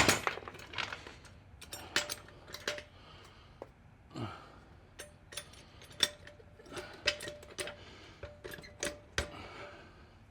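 Hand tools clinking and knocking on the steel of a 1967 Volkswagen chassis as a tight, stubborn fastener is worked under pressure: irregular sharp metal clicks, the loudest right at the start, some with a short ring. The fastener does not give.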